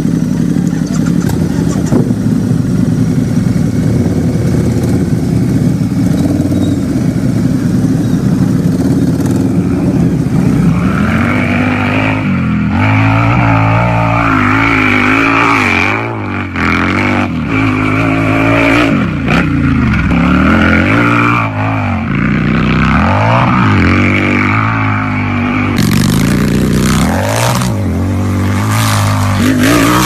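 Harley-Davidson motorcycle's V-twin engine idling steadily, then, about ten seconds in, revved over and over, its pitch rising and falling with each blip of the throttle. Sharp crackles join the revving near the end.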